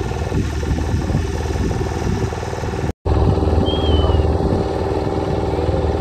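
Motorboat engine running steadily at a constant pitch, with a brief dropout of all sound about halfway through.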